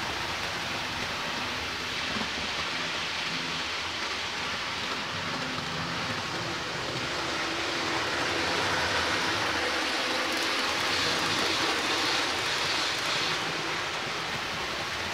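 Model train running on the layout's track out of view: a steady rattling hiss that grows a little louder about two-thirds of the way through.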